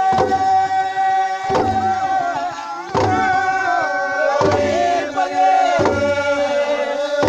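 Group of voices chanting a traditional singsing song in long held notes, with a drum beat landing about every second and a half.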